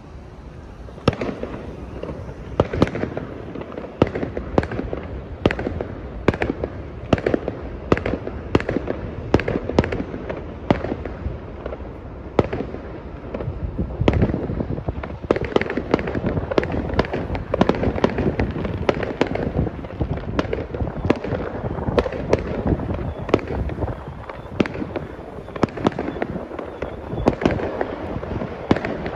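Fireworks going off: sharp bangs, about one to two a second, over a continuous low rumble, beginning about a second in.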